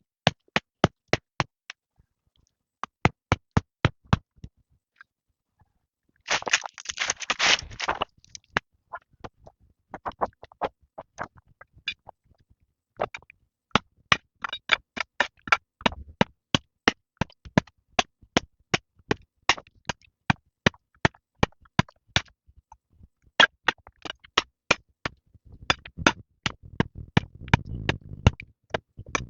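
Rapid sharp knocks, about four a second, in runs broken by short pauses, with a brief rustling patch about six seconds in and a low rumble building near the end.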